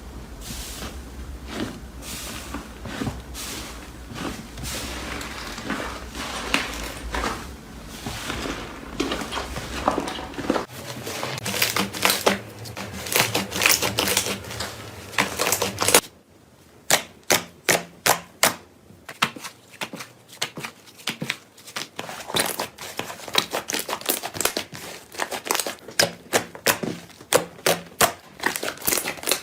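Slime being pressed and squeezed, making crisp clicking and popping sounds. About halfway in, the background drops away suddenly and the pops come as separate sharp clicks, about two a second.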